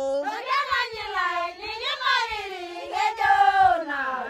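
A high voice singing long notes that slide up and down in pitch.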